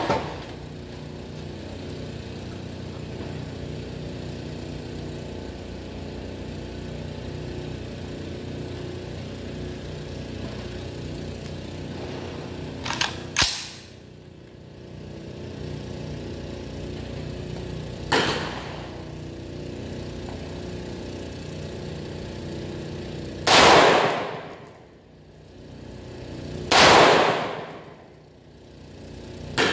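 Single rifle shots from an M16A2-clone AR-15, fired one at a time several seconds apart, each a sharp crack with a ringing echo. The two loudest come in the last third, about three seconds apart, with a steady low hum between shots.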